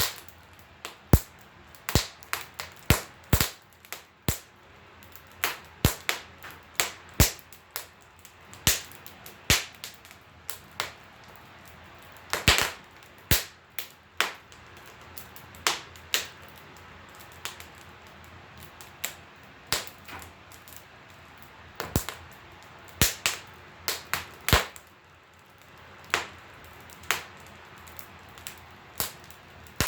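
Wood fire crackling and popping in a wood stove: irregular sharp pops, one to a few a second, with the loudest about halfway through.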